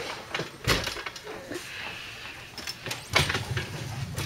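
Metal-framed luggage cart rattling with a few sharp knocks, then a low rumble as it rolls, from about three seconds in.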